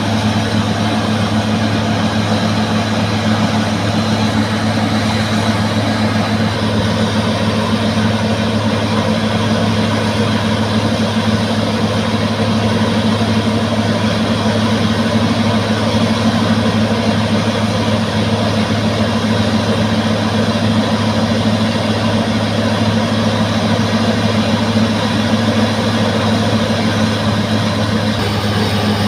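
Heavy diesel engine of a bulldozer running at a steady, unchanging speed.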